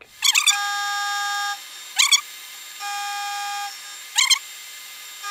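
Engine lathe turning square steel stock with a carbide tool in an interrupted cut, where the four corners strike the tool every revolution. Short, sharp bursts come about three times. Between them a steady, high ringing tone sounds for about a second at a time.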